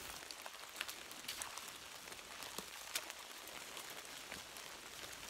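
Wet snow and rain falling on the leaf-covered forest floor: a steady hiss with scattered sharp drop ticks.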